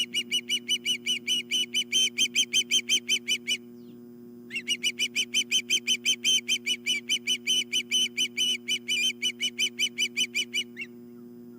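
Osprey calling: a rapid run of sharp, high whistled chirps, about six a second, in two long bouts with a short break about four seconds in.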